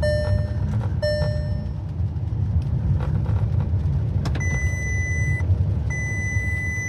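Low rumble of the VW T6.1 Multivan's running engine, with the dashboard warning chimes sounding: two short lower chimes near the start, a few clicks, then from about four seconds in a repeating high beep, about a second on and half a second off. The warnings come from the van's electrical fault, lost communication with the body control module, which the owner traced to a loose fuse.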